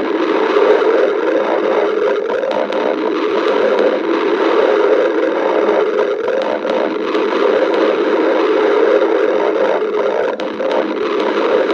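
Stomach growling: one long, continuous rumble with no break.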